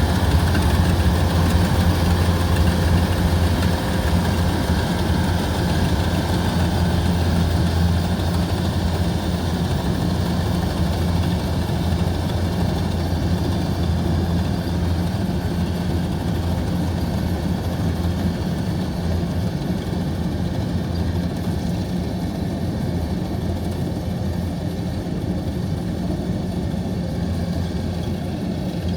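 Heavy machine engine running steadily with a deep hum, slowly growing a little quieter.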